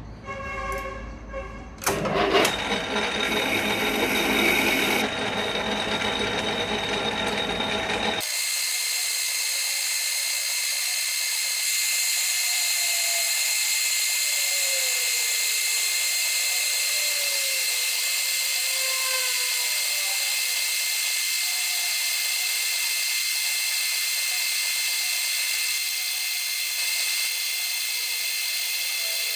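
Metal lathe running and turning down a metal bar with a single-point cutting tool: a steady machine whine of high, even tones over a hiss. It rises sharply about two seconds in, and after about eight seconds the low rumble drops out abruptly, leaving the high whine.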